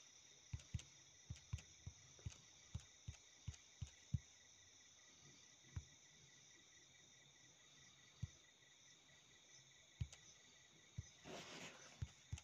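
Near silence: faint steady high-pitched insect chirring in the background, with soft irregular taps of fingertips on a phone screen. The taps come about two a second for the first few seconds, then sparser, with a short rustle near the end.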